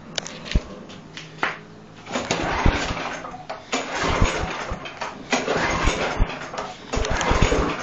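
Briggs & Stratton push-mower engine cranked by repeated pulls on the recoil starter rope, each pull a noisy burst with low thumps, not catching and running.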